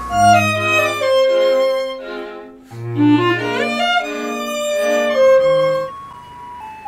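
Violin-led string music in two loud phrases with low bass notes under each. It breaks off briefly between them and thins out near the end.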